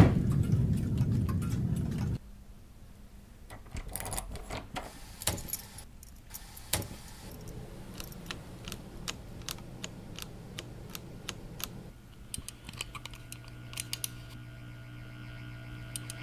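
Foley-recreated skateboard rolling over a concrete floor for about two seconds, then a long run of sharp clicks as toggle switches on a large amplifier panel are flipped one after another. A low steady hum comes in about twelve seconds in as the amplifier powers up, and a dial is turned near the end.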